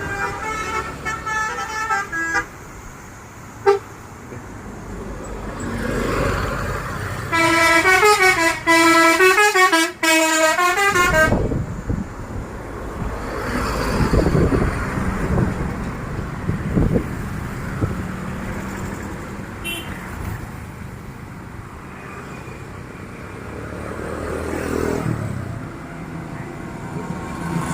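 Basuri V3 musical bus horn playing a short stepping tune of several notes at the start and loudly again from about 7 to 11 seconds in, with bus engines running and passing in between and afterwards.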